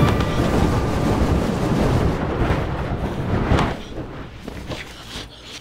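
Sound effect of a box bursting into flames: a loud, deep rushing roar of fire that swells once more about three and a half seconds in, then dies down.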